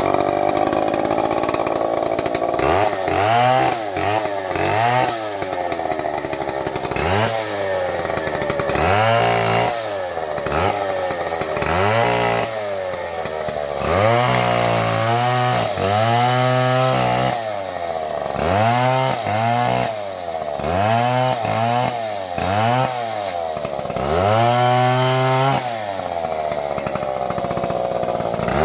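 Stihl MS720 chainsaw cutting into a tree, running hard throughout, its engine speed rising and falling over and over, about once every second or two.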